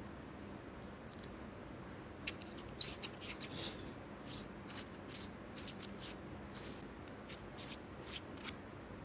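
Irregular small plastic clicks and scrapes from a Boya BY-M1 lavalier microphone's battery housing being handled as a button battery is fitted. They start about two seconds in and go on for around six seconds.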